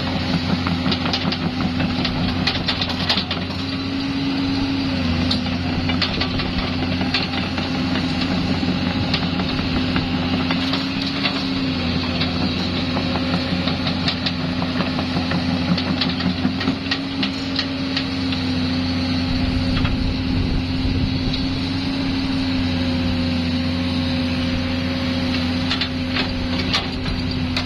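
Komatsu PC200-7 excavator's six-cylinder diesel engine running steadily. Its pitch sags briefly a few times, around 5, 12 and 22 seconds in, and short clicks and knocks come and go over it.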